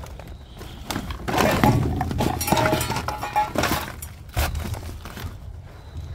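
Rummaging in a dumpster: irregular knocks and clattering of debris and metal being shifted and stepped on, busiest in the middle, with a brief metallic ringing.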